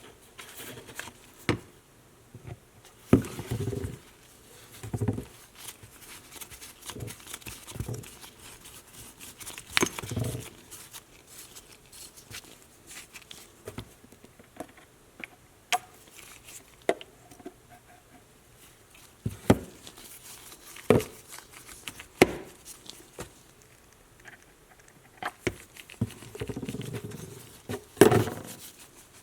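Irregular clicks, taps and knocks with short stretches of rubbing, the sound of small metal parts and hand tools being handled.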